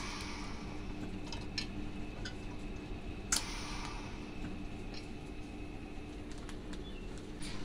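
TIG welder tack-welding stainless-steel rod. Twice, about three seconds apart, the arc strikes with a sharp crack and runs for about a second of hiss, over a steady hum with light clicks in between.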